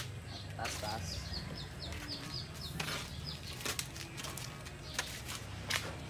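Large cardboard washing-machine carton being gripped and shifted, giving scattered short knocks and scrapes. About a second in, a small bird chirps rapidly for a couple of seconds.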